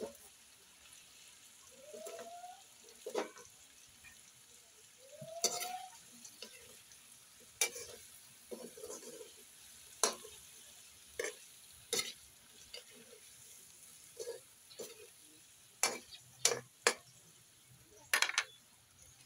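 A metal spatula scraping and clanking irregularly against a steel wok as meat and vegetables are stir-fried, over a faint steady sizzle of the food in hot oil.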